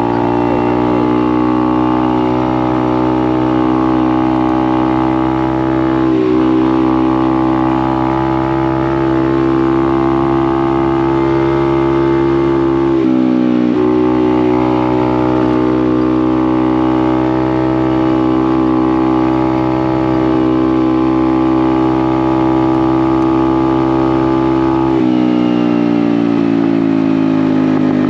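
Honda Navi's small single-cylinder engine running steadily under way, its pitch dipping briefly about halfway through and falling away near the end.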